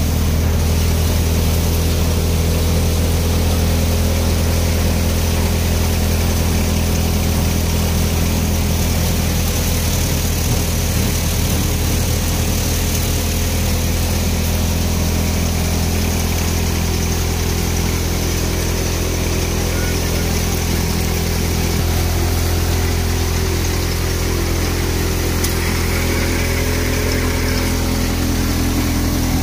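Multicrop thresher running steadily at working speed while dry crop stalks are fed into it by hand: a loud, even machine drone from the spinning threshing drum, fans and drive.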